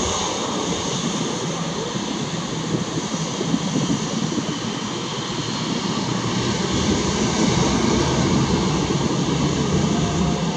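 Boeing 737-800's CFM56-7B turbofan engines running at taxi power as the airliner taxis away: a steady jet rumble with a faint high whine.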